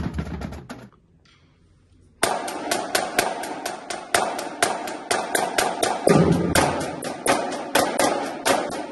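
The tail of an intro music track, a second's pause, then about two seconds in a marching drum line starts up: snare drums played together in steady, evenly spaced stick strokes, with tenor and bass drums joining in.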